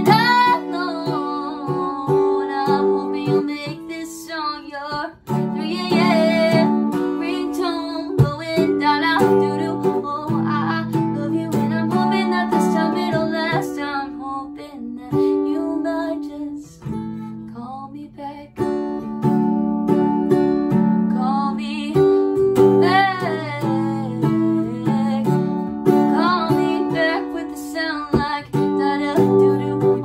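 Acoustic guitar capoed at the seventh fret, played under a woman's singing voice in a slow original song.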